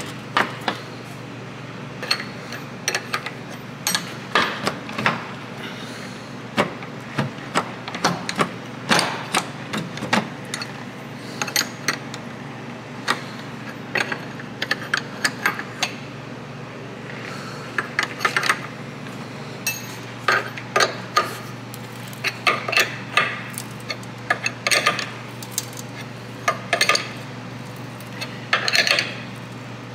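Irregular metallic clicks and clinks of a wrench working the nut on a bushing press tool's threaded rod, drawing a new press-fit subframe bushing into the subframe. A steady low hum runs underneath.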